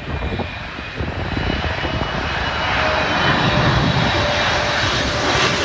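Boeing 777-300ER's twin GE90-115B turbofans on approach passing close overhead: a loud jet roar with a steady high fan whine, growing louder over the first few seconds.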